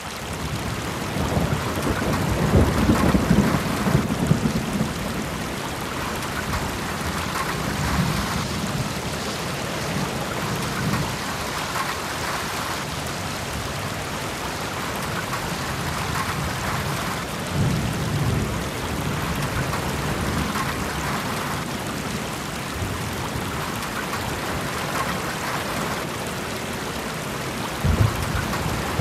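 Steady rain with low rolls of thunder swelling several times, the strongest a few seconds in and near the end.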